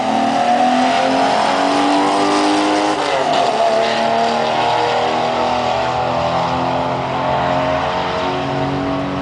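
Two drag cars, a modified Valiant VG Pacer with a 265 six and an LS V8 Holden Commodore, at full throttle down the strip, engine pitch climbing with a gear change about three seconds in. The sound fades slowly as the cars pull away.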